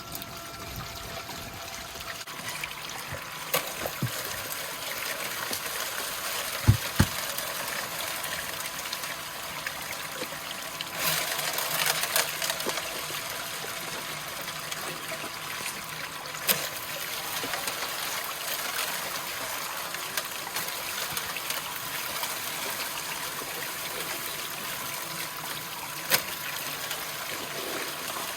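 Water running steadily through a Geosluice drop-riffle highbanker while a bucket of paydirt is run through it, with a few sharp knocks, the loudest about seven seconds in.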